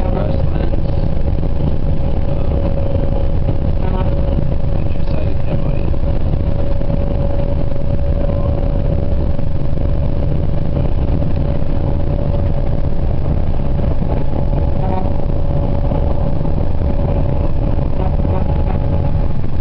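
Inside a moving bus: steady engine and road rumble, with a constant hum held at one pitch throughout.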